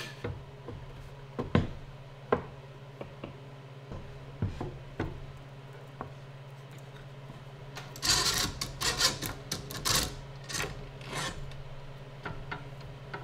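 Plywood panel and metal bar clamps handled during a glue-up: light wooden knocks and taps, then a burst of scraping and clicking about eight seconds in as a bar clamp is slid along its bar and set against the frame.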